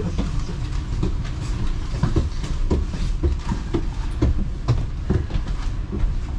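Double-decker bus standing with its engine idling, heard from the upper deck: a steady low rumble with irregular rattles and knocks, a few each second.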